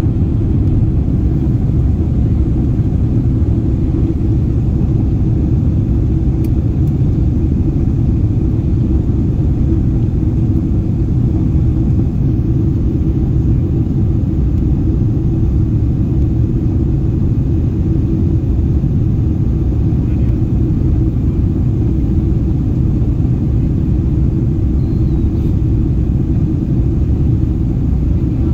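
Steady low rumble of cabin noise inside a Boeing 777-300ER airliner in flight: engine and airflow noise, loud and unchanging.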